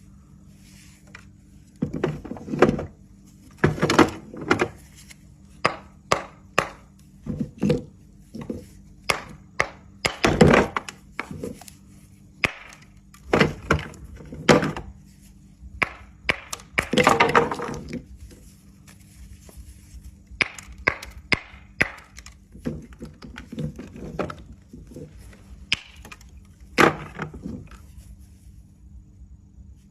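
Dry Turkestan clay tiles snapping and crunching: an irregular series of sharp cracks and brittle crunches, a few of them drawn out into longer crumbling crunches.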